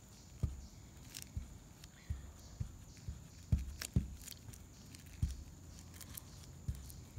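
Faint, irregular soft thuds about once a second, with a few light clicks: a brush dabbing and working fiberglass resin into fiberglass cloth on a plywood boat deck.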